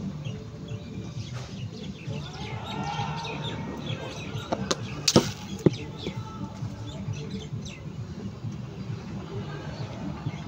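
A leather cricket ball pitching and bouncing on a cement net pitch: a sharp knock about five seconds in, with smaller knocks just before and after it, over birds chirping.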